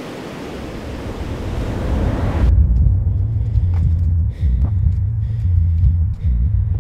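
Ocean surf washing in as a steady hiss. It cuts off abruptly about two and a half seconds in, replaced by a loud, deep low rumble with a few faint clicks.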